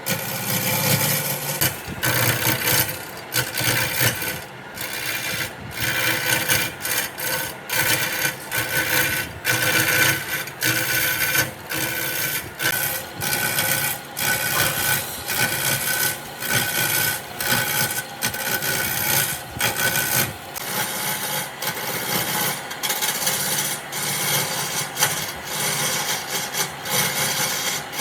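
A hand tool rubbing over wood in a steady run of repeated back-and-forth strokes, about one to two a second.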